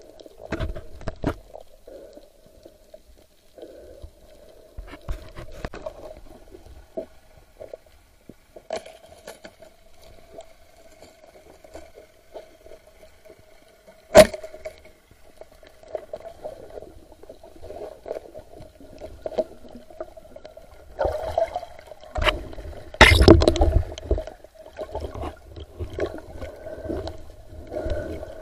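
Underwater sound recorded by a night spearfisher's camera: a steady hum with scattered clicks and knocks, one sharp snap about halfway through, and a loud noisy rush with a deep rumble a few seconds before the end.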